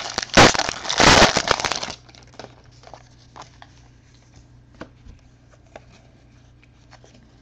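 Foil wrapper of a 2014 Bowman Draft jumbo card pack torn open and crinkled for about two seconds. After that come faint, scattered ticks as the cards are thumbed through by hand.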